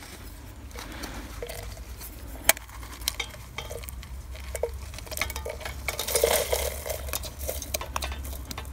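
A titanium spork scraping and tapping in a plastic tub as dried mushrooms, onion and herbs are spooned into a metal pot of melting butter: scattered light clicks and scrapes, with one sharp click about two and a half seconds in and a busier stretch past the middle.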